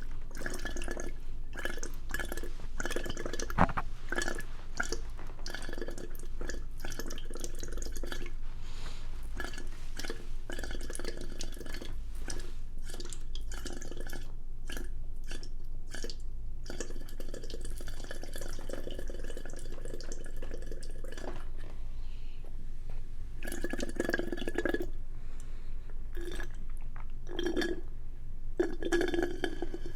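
Close-up wet mouth sounds of eating and slurping: rapid small smacks and clicks, thinning out about two-thirds of the way through, then a few short, low throaty sounds near the end.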